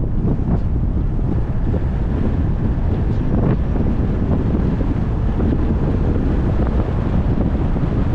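Steady wind and road rumble of a car on the move, with wind buffeting the microphone.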